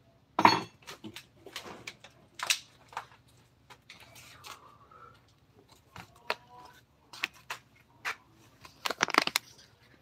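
Irregular knocks and clicks of hard objects being handled, about a dozen, the loudest about half a second in and a quick cluster near the end.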